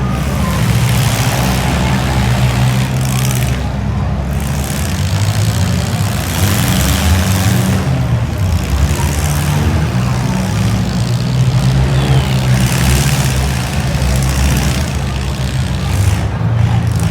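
Several demolition derby compact cars' engines running loudly, their pitch rising and falling as they are revved.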